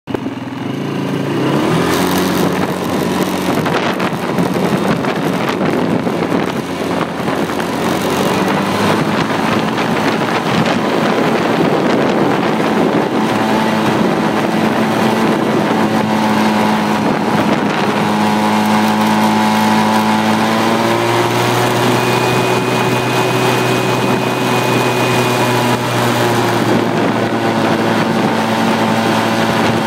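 ATV engine running while riding along, its pitch stepping up and down a few times with speed. Wind rushes over the microphone in gusts.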